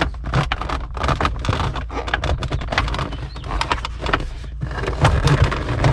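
Plastic console trim clicking and knocking as it is worked loose and slid back, a dense run of short clicks and rubs over a low rumble.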